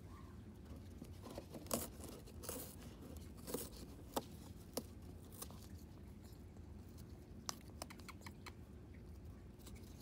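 Moluccan cockatoo chewing and tearing at cardboard with its beak: soft, irregular crunches and sharp cracks scattered throughout.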